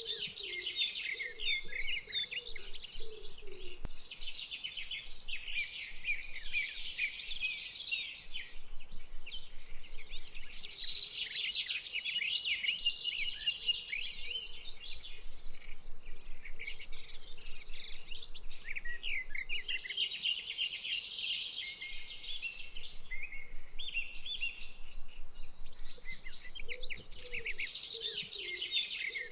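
A dense chorus of small songbirds chirping and trilling continuously, many short, quick, high-pitched notes overlapping.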